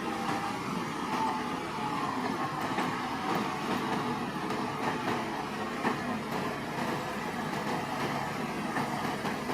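Crawler bulldozer at work: a steady mechanical running with the continuous rattling clatter of its steel tracks.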